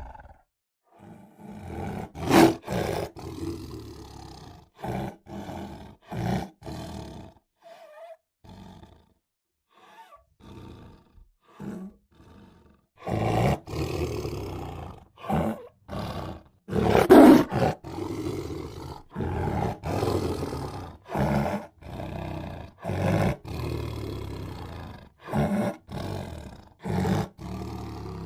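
Tiger roaring in a string of short calls, sparse and quieter in the first half, then louder and coming about once a second from about halfway through.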